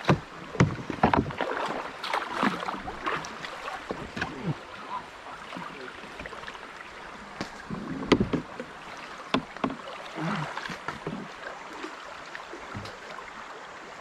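Kayak being paddled on the river: irregular paddle splashes and sharp knocks against the hull over a steady water hiss, busiest in the first few seconds and again around eight to ten seconds in.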